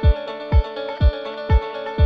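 Electronic background music: a steady kick drum about two beats a second over held chords.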